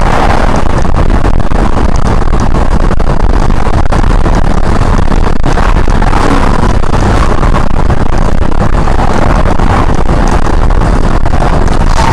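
Loud, steady road and wind noise of a car driving at highway speed, picked up by a dash camera's microphone inside the cabin.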